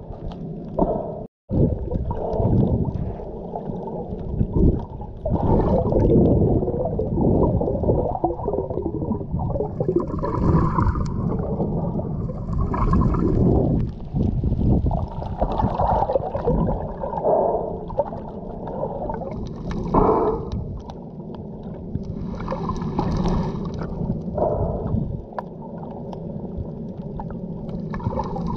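Muffled, continuous sloshing and gurgling of water, loud and low-pitched, with a few brief hissy splashes; it breaks off for an instant about a second and a half in.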